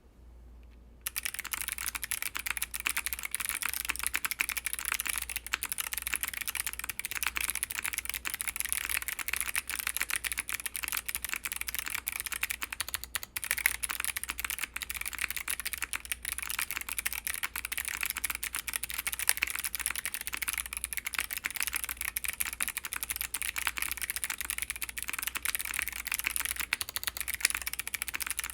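Continuous fast typing on a KBD8X MKII mechanical keyboard with Kailh Box Jade clicky switches (Box Navy on the modifiers), brass plate and GMK keycaps: a dense stream of sharp, crisp clicks that starts about a second in, with one brief pause midway.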